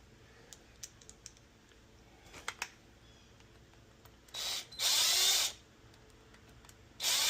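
Cordless drill-driver run in three short bursts, driving screws on a small engine part, its motor whine gliding in pitch; the first burst is brief and quieter. A few light clicks of small parts being handled come first.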